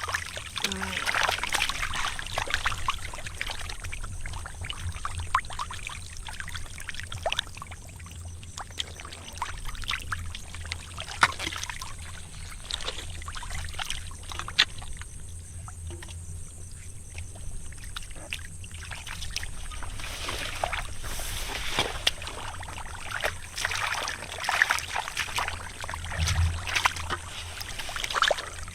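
Shallow muddy water splashing and sloshing, with many short, sharp splashes and slaps scattered throughout, busier near the start and again in the last third.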